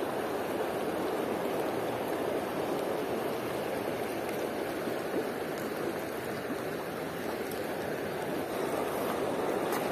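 Shallow rocky river running over cobbles: a steady rush of flowing water.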